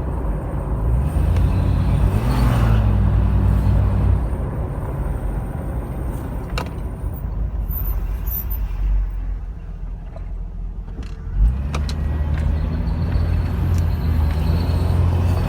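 Toyota Land Cruiser 80 series running, with a steady low engine drone that fades into a rougher, noisier rumble in the middle and then returns. There is a single sharp thump about eleven seconds in.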